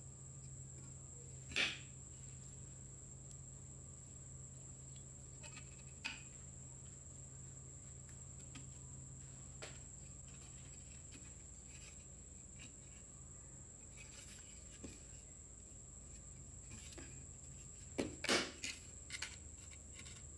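Rusted metal parts of an old Hitachi G13S1 angle grinder's gear and motor housings knocking and clinking as they are handled and worked apart by hand. There are a few isolated knocks, then a quick cluster of louder ones near the end, over a faint steady high-pitched whine.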